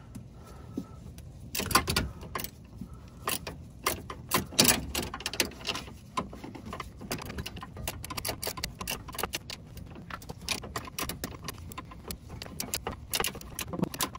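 Hand ratchet wrench unscrewing the nut of a 2012 Chevy Volt's front stabilizer link, with the stud held fast by locking pliers: a few separate metal clinks at first, then quick runs of ratchet clicks. The nut turns hard by hand.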